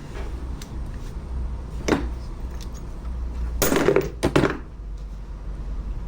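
A few short knocks and clinks of hand tools and metal parts as the timing gears are worked off a Polaris RZR 800 engine, over a low steady hum. The loudest cluster comes about two thirds of the way through.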